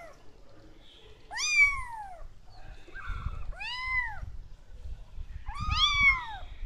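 Four-week-old kittens meowing: three high calls about two seconds apart, each rising then falling in pitch.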